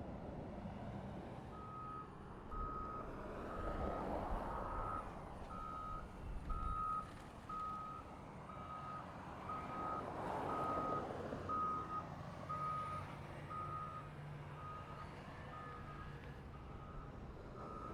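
Reversing alarm of a construction vehicle, a single high beep repeating steadily about once a second, starting about two seconds in. Passing traffic noise rises and falls twice underneath.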